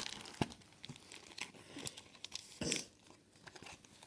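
Clear plastic binder pocket pages crinkling and rustling as trading cards are handled and slid into them, with scattered small clicks and two louder rustles, one about half a second in and one just under three seconds in.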